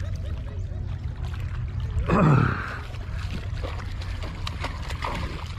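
Hooked fish splashing at the water's surface beside the rocks as it is reeled in, over a steady low rumble of wind and water. A brief loud sound falling in pitch stands out about two seconds in.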